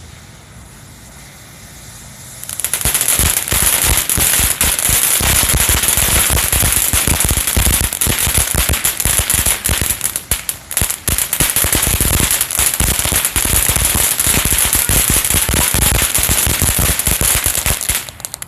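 Short stack consumer firework fountain burning: a steady hissing spray full of rapid crackling pops. It starts about two and a half seconds in and cuts off just before the end.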